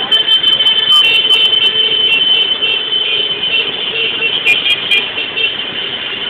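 Motorcycle and street traffic noise, with a steady high-pitched tone held through most of it and a few sharp clicks about a second in and again near the end.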